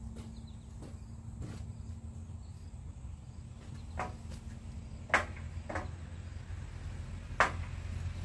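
Steady low hum of an idling truck engine, with a few sharp knocks in the second half, the loudest about five and seven seconds in.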